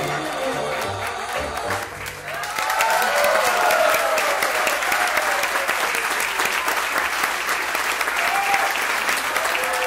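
Tango waltz music ends about two seconds in, and an audience breaks into sustained clapping with cheering voices over it.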